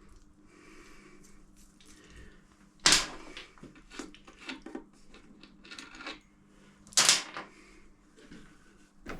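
Spanner work on the primary drive cover fixings of a 1942 Harley-Davidson WLA: a run of small metallic clicks and taps, with two louder metal clanks about three and seven seconds in.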